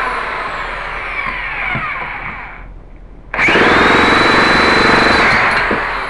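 Two bursts of an electric starter spinning the K&B .91 glow engine in a Byron ducted-fan unit. The first fades off about two and a half seconds in, and after a short pause a louder second burst comes with a whine that rises and then holds steady. The engine is being cranked but does not catch.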